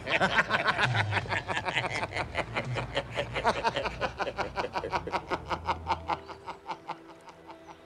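A man laughing hard and gleefully in a long run of rapid "ha-ha" pulses, about six a second, that trails off near the end as soft music comes in.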